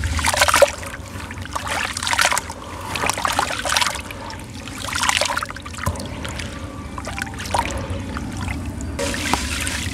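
Wet black sand cement squeezed and crumbled by hand in a plastic tub of water: sloshing and splashing in irregular swells, the loudest about half a second in as a handful is lifted and gritty sand trickles back into the water.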